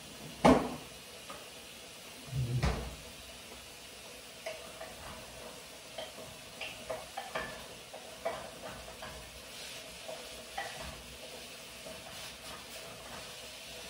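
A spoon stirring food in an enamel pot on the stove, clinking and scraping against the pot at an uneven pace. Two dull thumps come before the stirring, about half a second and nearly three seconds in.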